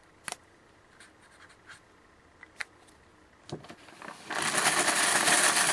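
Trading cards being handled: a few light clicks, then from about four seconds in a steady scratchy rubbing.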